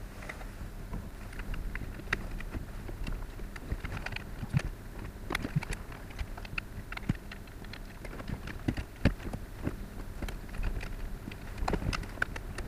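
Irregular small clicks, taps and knocks of a car climate control unit's plastic parts being handled and fitted together during reassembly, with a couple of louder knocks, over a low steady hum.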